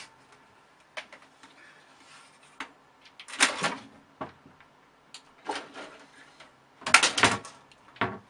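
A cat scrabbling and climbing at a curtain and a computer case: short bursts of rustling and scraping with a few knocks, three of them louder, the loudest near the end.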